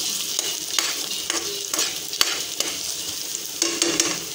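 Chopped onion and garlic sizzling as they are sautéed in a metal frying pan, stirred with a utensil that clicks and scrapes against the pan about twice a second.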